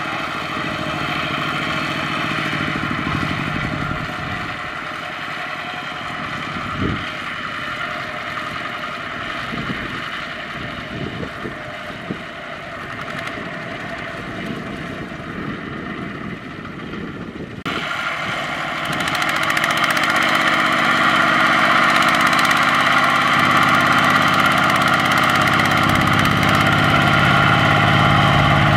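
Kubota ZT155 single-cylinder diesel engine of a two-wheel walking tractor hauling a loaded rice trailer, running steadily, with a few sharp knocks in the first half. About two-thirds of the way in it becomes much louder and closer as the tractor drives under load.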